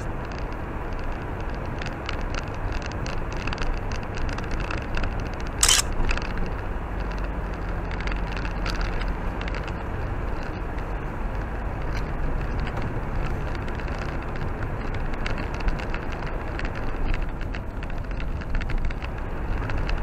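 Car driving slowly on a slushy, snow-covered road: steady engine and tyre noise, with scattered small crackles and a sharp knock about six seconds in.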